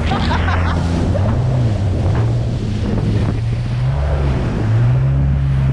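Supercharged 1800cc Yamaha jet ski engine running at speed, its pitch dipping about three and a half seconds in and then climbing again, over the rush of spray and wind on the microphone.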